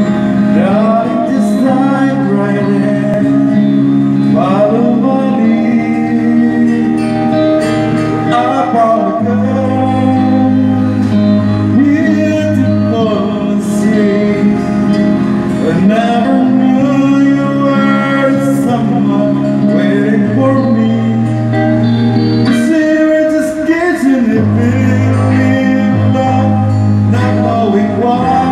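A man singing a slow song while playing an acoustic guitar.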